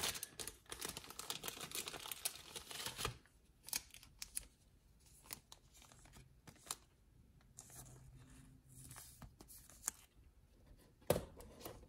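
Clear plastic card sleeve crinkling as a trading card is slipped into it, dense for the first three seconds, then scattered light rustles and clicks of plastic being handled, with one sharp click near the end.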